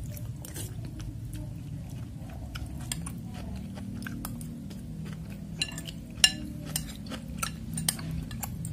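Metal spoon and fork clinking and scraping against a bowl of meatball noodle soup, with chewing, the sharpest clinks coming in the second half and the loudest about six seconds in. A steady low hum runs underneath.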